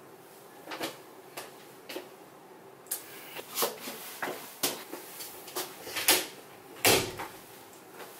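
Irregular clicks and knocks of a person moving about a small room and handling things, with one heavier thud about seven seconds in.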